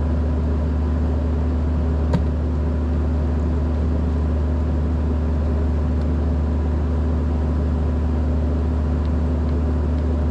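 A large engine idling with a steady low drone that does not change. One sharp click about two seconds in.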